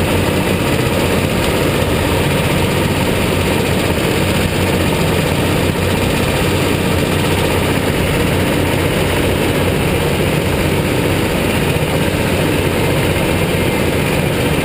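Go-kart engines running steadily at low speed in the pit lane, heard from the onboard camera as a loud, even drone.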